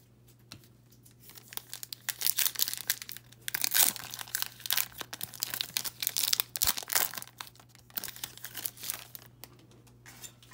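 A trading-card pack wrapper being torn open and crinkled by hand: a long run of crackling, tearing noise that peaks about four seconds in and dies down near the end.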